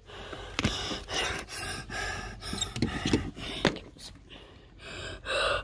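A person panting and breathing hard in quick, noisy breaths, with a few sharp knocks in between.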